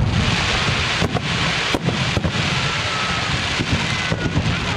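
Fireworks going off: a dense crackling hiss over a steady low rumble, cut by a few sharp bangs between about one and two seconds in.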